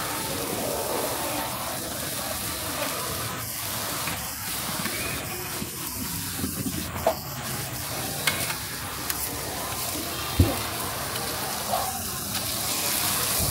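Food sizzling on a hot grill plate, with a few sharp knocks over it, the loudest about ten seconds in.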